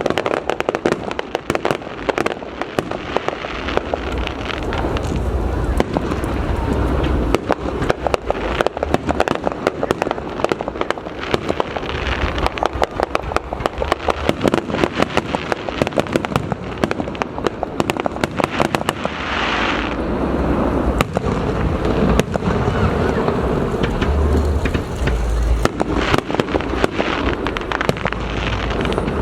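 Aerial fireworks display: a continuous barrage of rapid cracks and bangs, with deep booms coming again and again.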